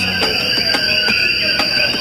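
Background music with a steady beat and a short repeated melody, over a continuous high-pitched trill of crickets.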